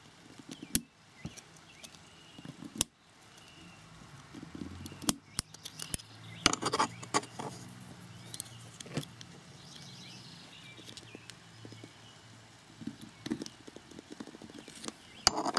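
Small metallic clicks and scrapes of a screwdriver tip against the steel parts of an M1 carbine trigger housing, coming at irregular moments, as the magazine release is worked onto the housing over its spring-loaded plunger.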